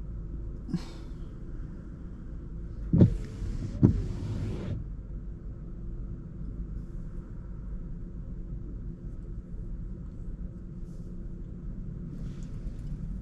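Car driving on a wet road, heard from inside the cabin as a steady low rumble of road and engine noise. About three seconds in comes a loud swishing sweep of under two seconds, with a thump at its start and another partway through.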